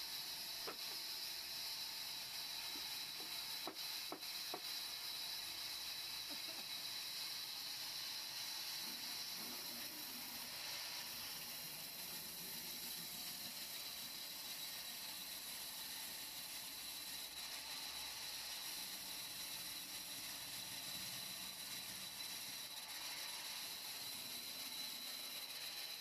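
Vertical band saw ripping a wooden log slab lengthwise: a steady high hiss of the blade cutting through the wood.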